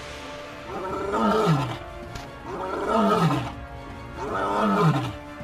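An animal calls three times, each call about a second long and falling in pitch, over background music.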